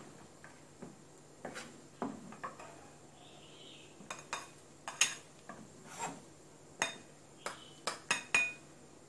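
Cleaver blade clinking and scraping against a ceramic bowl and a cutting board while chopped shrimp is scooped into the bowl: about a dozen sharp, uneven clinks with short scrapes between them.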